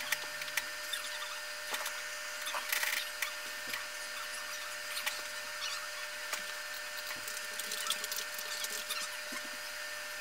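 Faint room tone: a steady high whine with a light hiss and scattered small ticks.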